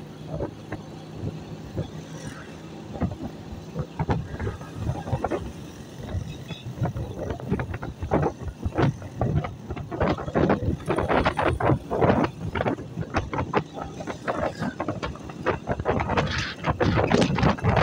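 A small motorcycle's engine running as the bike rides along a street, with wind buffeting the microphone and passing traffic. The buffeting gets busier and louder in the second half.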